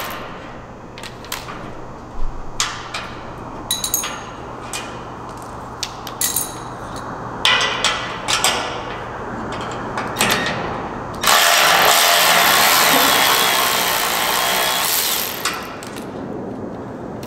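Metal hardware clicking and knocking as bolts and a mount are handled, then a power tool runs for about four seconds, about two-thirds of the way through, backing out the leg bolts.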